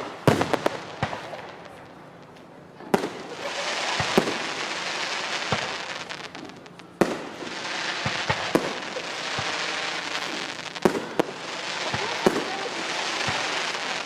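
Aerial fireworks shells bursting overhead in a run of sharp bangs about a second apart. After the bursts there are long stretches of dense crackling.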